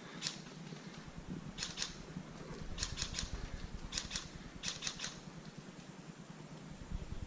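Airsoft pistol shots: about a dozen sharp cracks fired in quick strings of two to four, with pauses of about a second between strings.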